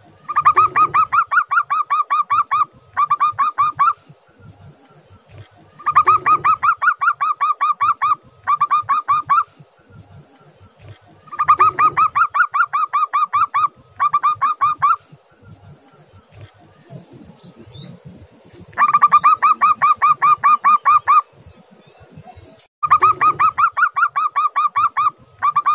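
Zebra dove (perkutut) singing: five bouts of its song, each a rapid string of short, clipped cooing notes lasting two to three seconds, most followed after a brief gap by a shorter run of notes, with pauses of a few seconds between bouts.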